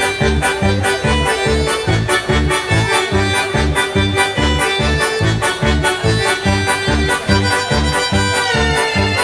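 Instrumental keyboard music: an accordion-like melody over a steady, fast bass-and-drum beat.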